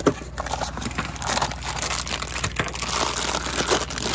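Cardboard box of a TV wall mount kit being opened and clear plastic bags of mounting bolts crinkling as they are handled, an irregular run of crackles and rustles.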